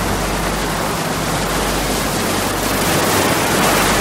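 Rough storm sea: waves breaking and rushing water in a steady wash of noise that swells a little near the end.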